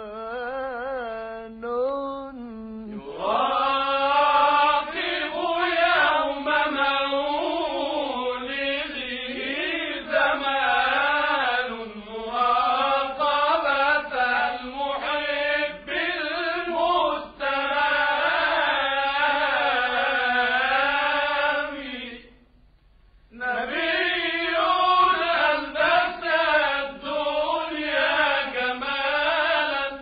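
A man's solo voice chanting an Arabic religious tawshih in a long, ornamented, melismatic line, with a short break for breath about two-thirds of the way through.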